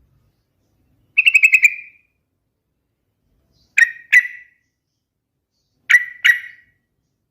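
A yellow-vented bulbul (trucukan) singing. One quick bubbly phrase of about eight notes is followed by two short two-note calls, with pauses between the phrases.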